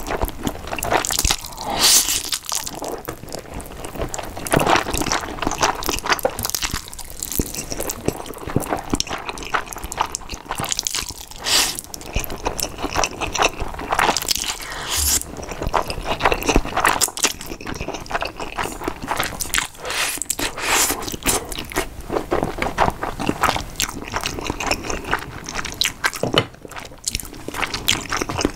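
Close-miked eating sounds: slurping and chewing spicy stir-fried instant noodles, with the loudest slurps every two or three seconds.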